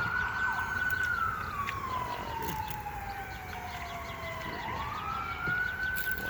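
Siren wailing in a slow rise and fall: it climbs to a high tone and holds it, slides down over about three seconds, then climbs again near the end.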